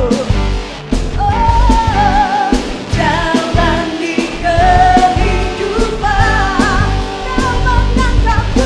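A praise and worship song performed by a band: sung vocals over keyboard, electric guitar, bass guitar and drums.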